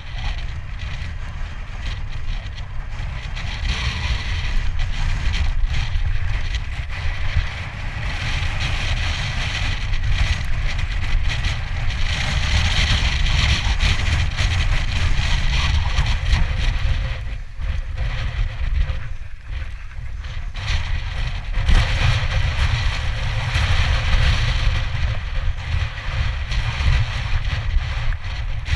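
Strong wind buffeting the microphone: a heavy low rumble that surges and eases in gusts, with a steady hiss over it that dips briefly past the halfway point.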